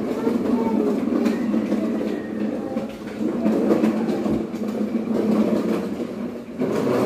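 Steady rain pouring down outside, a loud continuous rush of noise.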